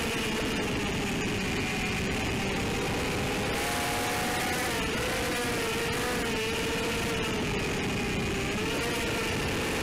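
ZMR180 racing quadcopter's brushless motors and propellers whining in flight, the pitch wavering up and down as the throttle changes, over a steady rushing noise of air over the microphone.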